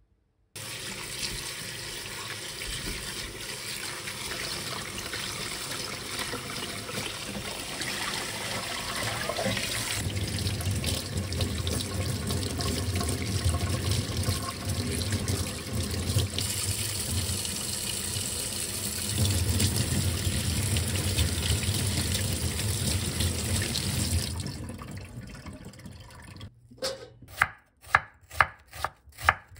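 Tap water running into a stainless-steel sink bowl as hands rub and rinse garlic chives; the water stops near the end. Then a chef's knife slices an onion on a wooden cutting board, about two cuts a second.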